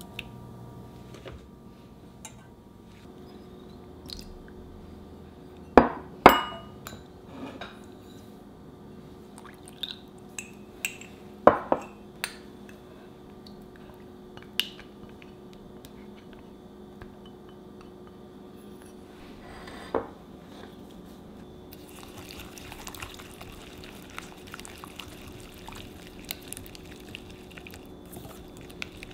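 Kitchen utensils clinking and knocking against a steel saucepan and ceramic bowls as ingredients are added, with a few sharp knocks standing out. Near the end a wire whisk beats egg yolks in a bowl with quick, light strokes.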